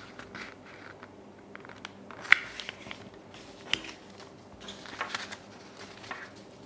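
Sheets of green paper being folded and handled: soft rustling and crinkling, broken by a few sharp crisp clicks as creases are pressed, the loudest about two seconds in.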